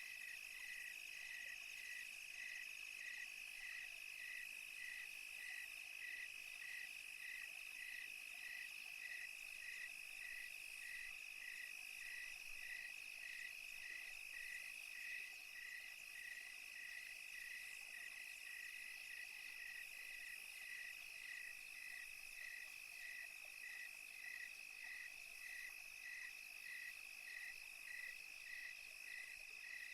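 Crickets chirping at night: an even chirp about twice a second over a continuous high trill from other insects.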